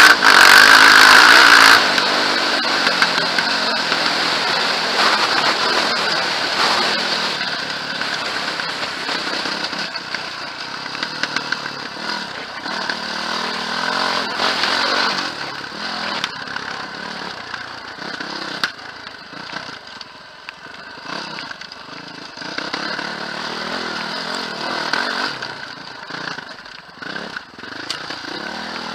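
Quad bike engine running as it is ridden over a rough dirt track, the throttle rising and falling; loudest in the first two seconds, then easing off.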